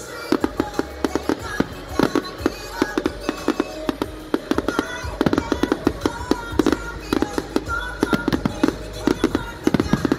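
Fireworks display: a rapid, irregular series of sharp pops and crackles, several a second, with music playing alongside.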